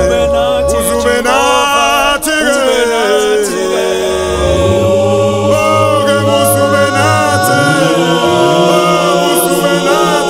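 Church choir singing a cappella: many voices in harmony holding long notes, sliding between pitches.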